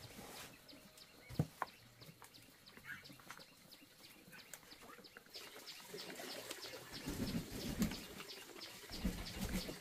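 A brood of ducklings peeping in quick overlapping chirps that grow busier over the second half, with two sharp knocks about a second and a half in and some rustling near the end.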